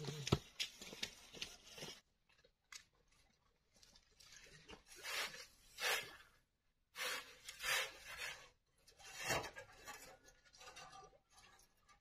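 Footsteps on a dirt track, then gritty scraping and sliding as sand is tipped out of a metal wheelbarrow onto a pile, in several swells.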